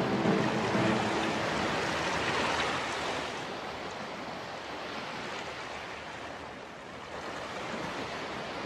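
Steady rushing of water, like surf or flowing water, that grows fainter after about three seconds.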